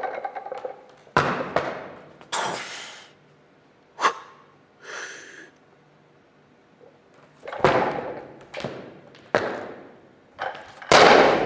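A 130 kg loaded Olympic barbell on bumper plates: the plates clank as the lifter rises out of the clean's squat and again through the jerk, about two thirds in. Near the end the bar is dropped onto the platform with a heavy thud, the loudest sound.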